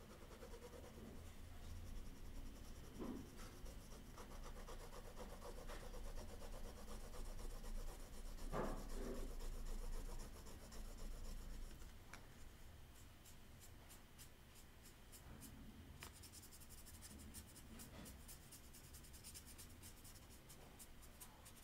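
Pen scratching on sketchbook paper in short strokes, with fingers rubbing across the page. The sound is faint. The strokes come quick and close together in the second half.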